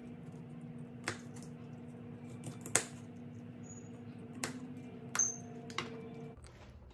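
Kitchen knife striking a cutting board while vegetables are chopped: five or so sharp, unevenly spaced taps, the loudest about three seconds in, over a steady low hum that stops near the end.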